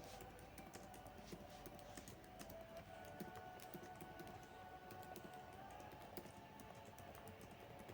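Faint background music under many quick, irregular light clicks and taps.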